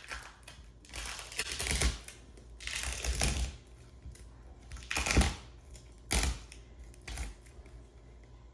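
A 2x6 board held to vinyl plank flooring with double-sided carpet tape being pulled up and handled, making several short scraping and rustling bursts.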